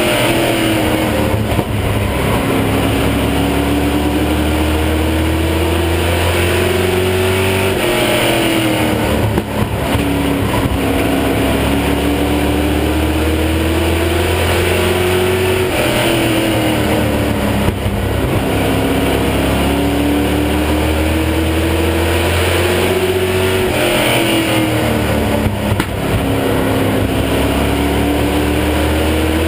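Sportsman stock car's V8 engine heard from inside the cockpit at racing speed. The note climbs steadily along each straight and drops sharply three times as the driver lifts into the turns, about every eight seconds.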